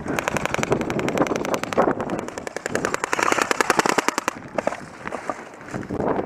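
Airsoft gun firing full-auto in one long rapid burst of evenly spaced shots that stops about four seconds in, followed by wind on the microphone and a few scattered shots.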